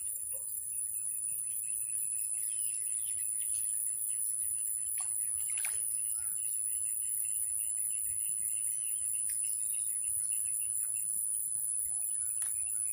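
Marsh ambience: a steady high-pitched insect drone, with a rapid chirping trill from about two seconds in until about eleven seconds, and a few faint clicks.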